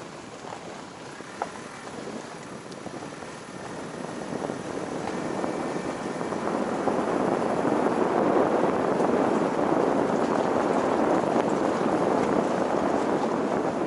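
Car on the move: a steady rushing of tyre and wind noise, without a clear engine tone, that grows louder over the first eight seconds or so and then holds, as the car picks up speed. A single sharp tick comes about a second and a half in.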